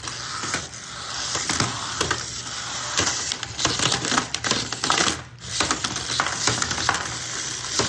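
Toy remote-controlled battle robots clattering and knocking against each other in a plastic arena: rapid, irregular clicks and bangs, with a short lull about five seconds in.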